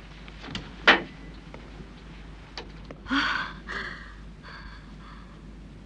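Door sounds: a sharp click about a second in, then three shorter rasping sounds.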